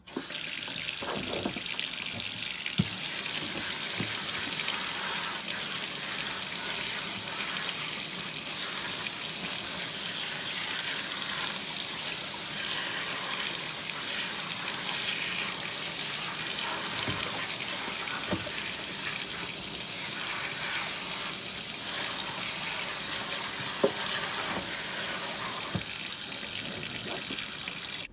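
Kitchen faucet running steadily into a sink as collard greens are rinsed in a colander, with a few light knocks from the greens and colander being handled under the stream.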